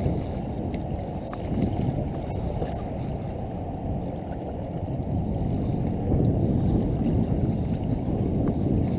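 Wind buffeting the camera microphone as a steady, uneven low rumble.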